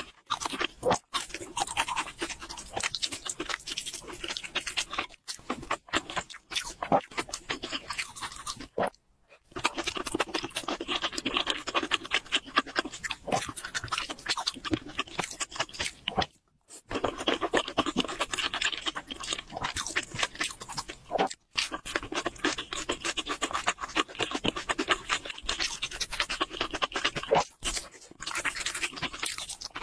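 Close-miked wet chewing and smacking mouth sounds of someone eating saucy spicy noodles and chicken: many quick sticky clicks and squelches, broken by a few brief silences.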